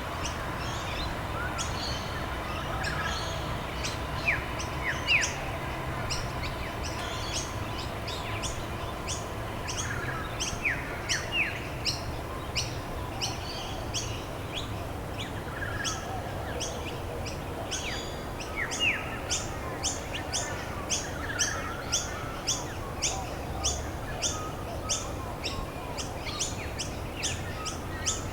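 Small songbirds chirping: quick, high chirps repeating a few times a second, thickest in the second half, with scattered sharp upward-sweeping whistled notes, over a steady low background rumble.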